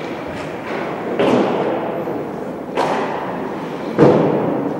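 Three hard thuds from play in a team game, echoing in a large indoor hall, each a second or more apart; the last is the loudest.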